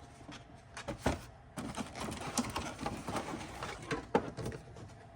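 Cardboard and plastic packaging of a collection box being handled and worked open: rustling and scraping with sharp clicks and knocks. It is busiest from about one and a half to four and a half seconds in.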